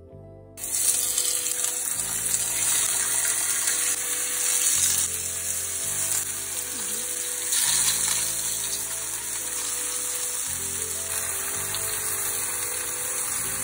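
Tomato slices sizzling in hot olive oil in a frying pan. The loud sizzle starts suddenly about half a second in and carries on steadily, over soft background music.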